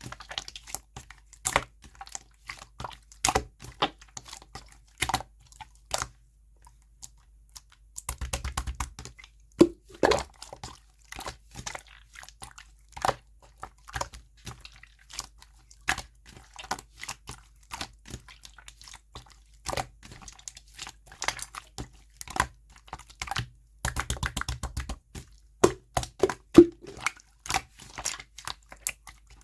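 Clear slime being handled: pressed, stretched and poked, giving irregular sharp clicks and air-bubble pops, with two short runs of rapid crackling.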